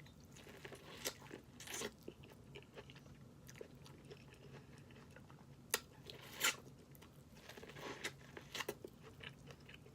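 Close-up eating sounds: chewing and biting with scattered short smacks and clicks, the sharpest about six seconds in.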